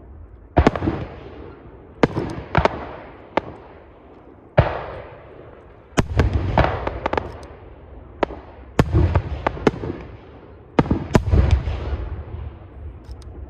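Aerial firework shells bursting one after another at irregular intervals, each sharp bang followed by a rolling, rumbling echo, with several clustered bangs about halfway through.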